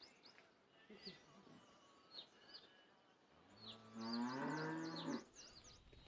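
A cow gives one long, low moo of nearly two seconds past the middle, while small birds chirp.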